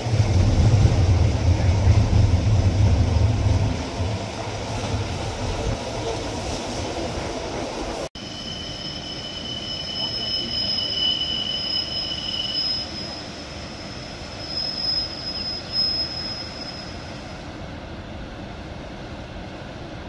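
Rhaetian Railway narrow-gauge train heard from aboard: a loud low rumble of the carriage running along, with wind noise. Then, after a cut, a distant train's wheels squealing in two steady high tones on the curve, stopping shortly before the end.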